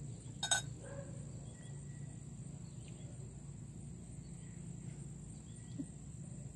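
Crickets chirring steadily, with a low hum underneath and a single knock about half a second in.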